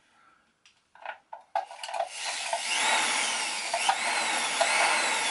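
230-watt electric flexshaft grinder motor starting up about a second and a half in and running free, its whine gliding up and down as the foot pedal varies the speed. A few light handling clicks come before it starts.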